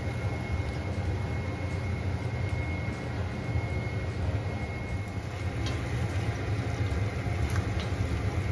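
Steady low motor-like rumble with a faint, steady high whine. A wooden spoon stirs meat and tomatoes in a stainless steel pot on top of it, with a few faint scrapes and clicks.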